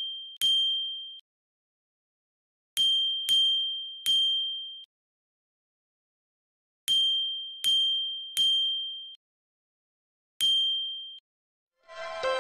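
A bell struck in quick sets of three dings. Each strike rings on one high note and fades. A single ding comes after the sets, and music starts just before the end.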